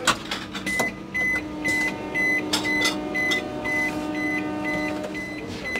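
Automatic door of a Vande Bharat Express coach sounding its warning beeper: a short, high, even beep about twice a second over a steady hum, with a few sharp clicks of the door mechanism.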